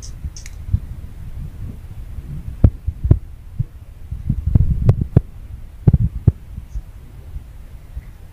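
Low, uneven rumbling and buffeting on a handheld phone's microphone while it is carried through dense undergrowth, with several sharp knocks and thumps from handling and footsteps in the vegetation.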